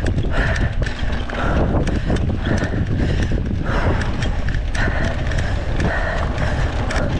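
Mountain bike ridden fast over a dirt track, heard from a handlebar-mounted camera: wind buffeting the microphone and a steady tyre rumble, with frequent small clicks and rattles from the bike over the bumps.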